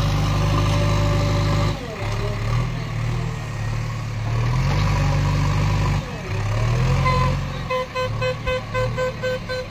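JCB 3DX backhoe loader's diesel engine running as the front bucket pushes into a heap of soil, its pitch rising twice as it revs under load. Near the end a rapid beeping starts, about three beeps a second.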